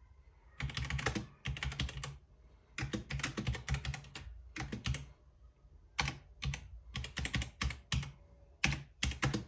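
Gamepower Overlord mechanical keyboard with red linear switches being typed on: quick runs of keystrokes in several bursts with short pauses between them.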